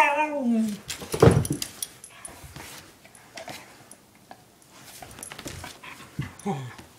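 Pet dog vocalising in play: a whining call that falls in pitch at the start, a loud huff about a second in, then quieter mouthing and snuffling noises and a short low grumble near the end.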